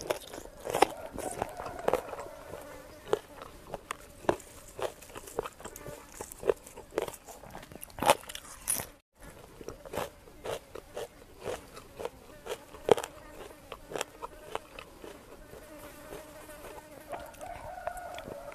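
A housefly buzzing close to the microphone, clearest in the first couple of seconds and again near the end, over wet chewing and many short crunching clicks from eating spicy chicken feet.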